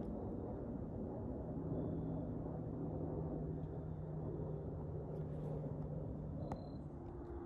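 Steady low rumble with a faint steady hum through the middle, and one sharp click near the end.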